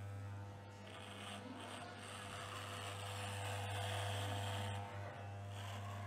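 Electric hair clippers buzzing steadily as they cut hair, with a rasping sound that swells a few seconds in as the blades bite into the thicker hair.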